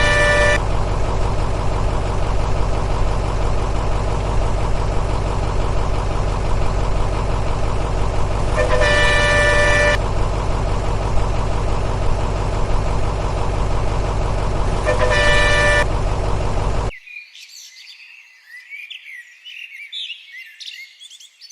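Motor vehicle engine running steadily, with a horn blowing three times for about a second each. The engine cuts off suddenly near the end, leaving faint high chirping.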